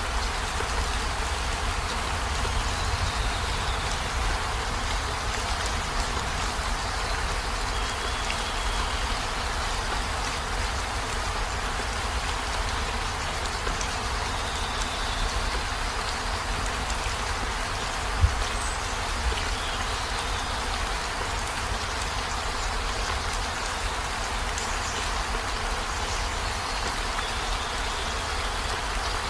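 Heavy rain falling steadily, with a deep low rumble beneath the hiss of the drops and a single sharper tap about eighteen seconds in.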